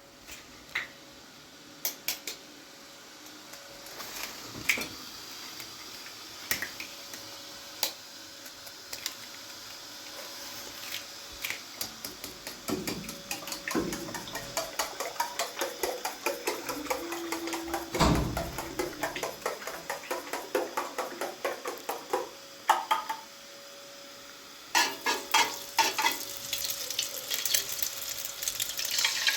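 Kitchen sounds: a utensil clinking and scraping against a pot or pan in quick repeated strokes, with food sizzling more strongly near the end, over a faint steady hum.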